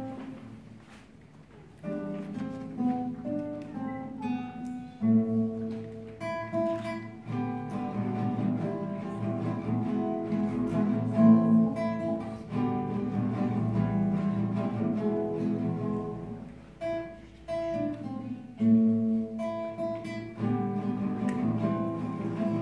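Solo classical guitar played fingerstyle: a steady flow of plucked notes and chords. The notes die away to a lull at the start, and playing picks up again about two seconds in.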